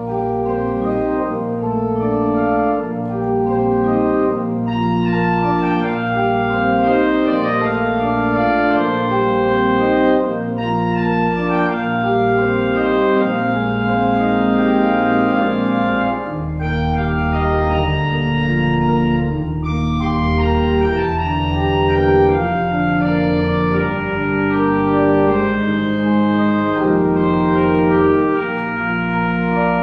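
Pipe organ playing slow, sustained chords. Deeper bass notes come in about halfway through.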